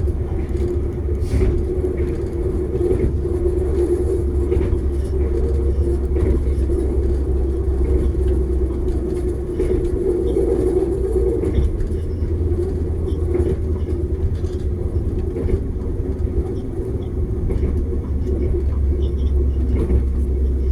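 Passenger train running on the line: a steady low rumble and drone from the moving train, with occasional faint clicks.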